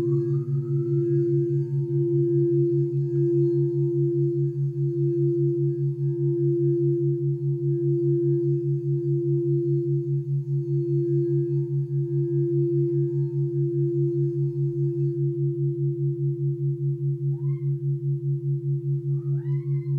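White crystal singing bowl played by circling its rim with a wand: one strong sustained tone that swells and eases slowly, its higher overtones dropping away about three quarters of the way through as the wand comes off, while the tone rings on. Beneath it runs a low, evenly pulsing drone of brain-entrainment tones.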